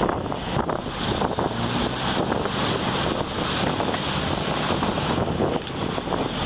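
Passenger train running, heard from on board at an open window: a steady rumble and clatter of wheels on the rails mixed with wind buffeting the microphone.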